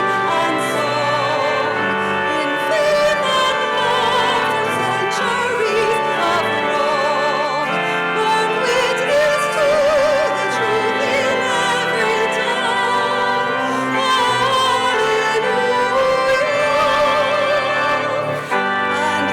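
Music: a voice singing long held notes with wide vibrato over instrumental accompaniment.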